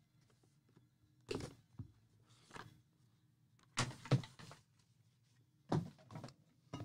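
A trading-card box being opened and handled by hand on a table: a series of irregular knocks and scuffs, loudest about four seconds in.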